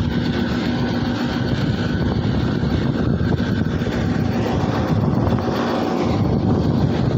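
Pakistan Railways diesel locomotive passing close by: the engine runs at a steady, loud drone over the rumble of wheels on the rails.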